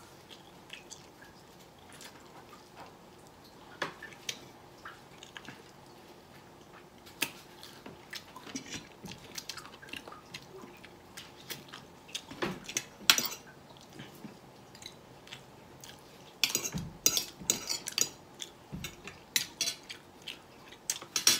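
Eating sounds: chewing, with scattered clinks and scrapes of a metal spoon and fork on a ceramic plate. The clinks are sparse at first and come thick and fast in the last few seconds.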